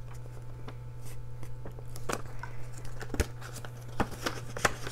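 Paper banknotes rustling and crinkling as they are handled and slipped into a binder's cash envelope, with a few sharp taps and clicks, over a steady low hum.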